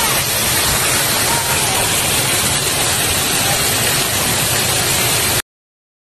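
Heavy rainwater pouring in sheets off the edge of a corrugated sheet roof: a loud, steady rushing splash that cuts off suddenly near the end.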